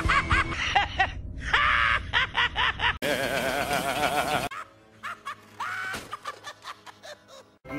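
The Joker's cartoon laugh in several short clips cut together: quick repeated ha-ha bursts, then a longer wavering laugh about three seconds in, and a quieter stretch near the end. Background music plays underneath.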